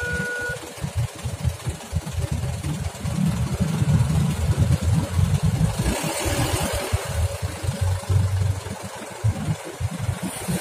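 Road traffic at a railway level crossing: the engines of waiting motorcycles, a car and a truck idling, then pulling away as the barriers lift. An uneven low rumble runs under it, with a louder swell of engine noise about six seconds in as the traffic moves off.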